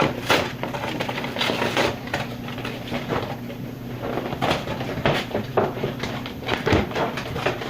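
Cardboard and plastic packaging of a trading-card box being handled and opened: a run of irregular crinkles, rustles and clicks.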